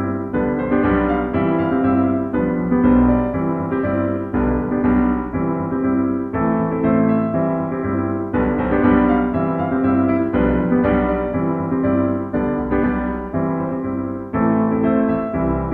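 Background music led by piano or electric piano, a steady run of notes.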